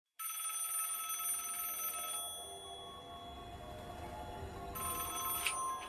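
Telephone ringing: one ring of about two seconds, a pause, then a second ring starting near the end.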